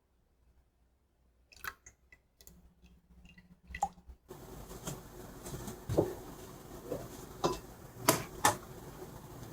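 Kitchen handling sounds: a few light clicks and taps, then a steady hiss from about four seconds in, with several sharp knocks over it.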